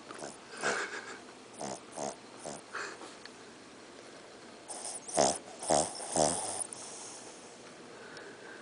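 Shih Tzu snoring loudly in its sleep, in uneven separate snores: a few short, softer ones in the first three seconds, then three louder ones past the middle.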